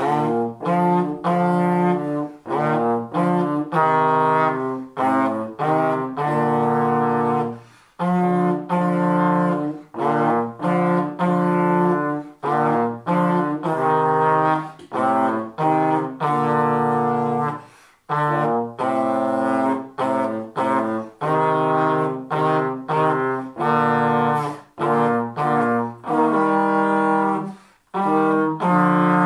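Two trombones playing a duet in two parts, in short separated notes, pausing briefly for breath between phrases about every ten seconds.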